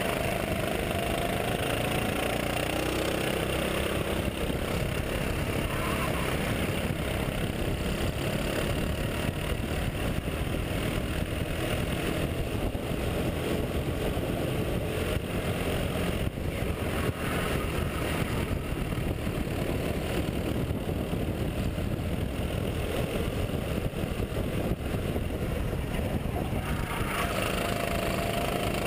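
Rental racing kart's engine running hard on track, heard from the kart itself, its pitch gliding up and down with corners and straights under a steady rushing noise.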